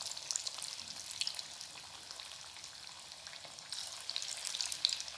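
Cauliflower pakoras sizzling in hot oil in a kadai, a steady crackle of small pops that gets busier about four seconds in. This is their second fry, after being par-fried and pressed flat, to make them crunchy.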